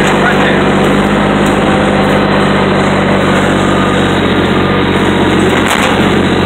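Diesel engine running steadily at a constant speed, a continuous drone, with one brief knock about five and a half seconds in.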